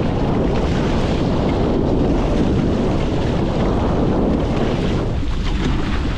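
Wind buffeting the microphone, steady throughout, over water rushing and splashing along the hull of a small wooden proa sailing through choppy water.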